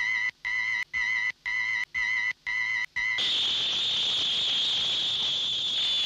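Electronic sci-fi sound effect: a rapid series of warbling beeps, about two a second, then from about three seconds in a continuous hissing blast with a high steady tone.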